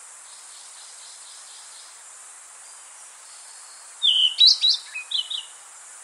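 Rusty-tailed flycatcher (Muscicapa ruficauda) singing: faint high notes in the first two seconds, then a short, loud phrase of quick varied high notes about four seconds in. A steady hiss runs underneath.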